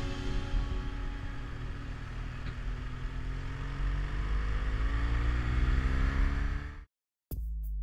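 Motorcycle engine pulling harder, its pitch rising steadily as the bike speeds up along the road, with wind noise over it. It cuts off suddenly about seven seconds in.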